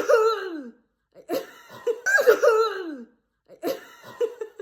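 High-pitched human laughter in three bursts, each sliding down in pitch; the first breaks out suddenly at the start.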